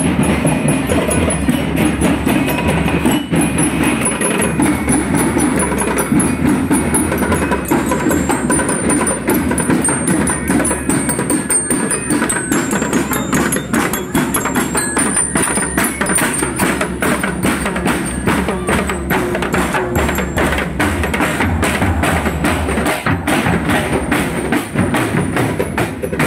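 Loud parade music carried by drums and percussion: a driving beat of rapid drum strokes that grows denser about halfway through.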